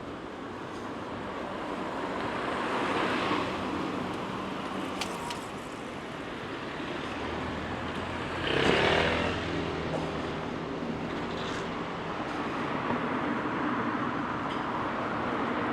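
Outdoor traffic noise with vehicles passing by. One goes by loudly and close about eight and a half seconds in.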